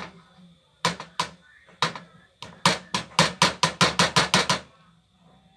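Sharp knocks of a hard object: a few spaced taps, then a quick run of about a dozen at roughly five a second, stopping suddenly near the end.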